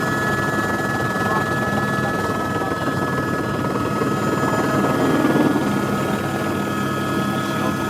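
Helicopter in flight: steady engine and rotor noise with two constant high-pitched whines over it.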